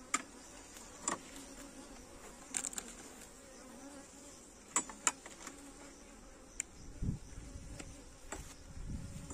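Honeybees humming steadily around an open nucleus hive, with several sharp clicks and taps from the metal hive tool, feed packet and wooden frames. A low thump about seven seconds in as the hive lid is set down.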